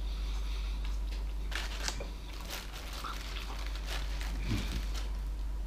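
Paper bread wrapper crinkling and rustling as a bread roll is handled and torn apart, a scatter of short crackles.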